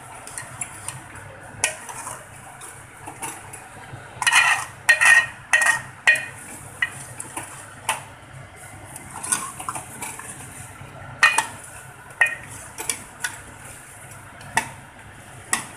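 Metal ladle scraping and clinking against a metal cooking pot as a thick mutton curry is stirred. The knocks come irregularly, with a cluster of louder clinks about four to six seconds in.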